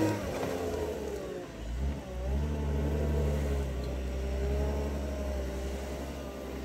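Linde forklift's combustion engine running as the truck manoeuvres: the engine note drops over the first second or so, then revs up again about two seconds in and holds steady.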